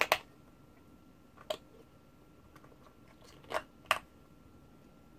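AA batteries being pressed into the plastic battery compartment of a digital multimeter, with a few sharp plastic clicks: one at the start, one a second and a half in, and two close together near the end.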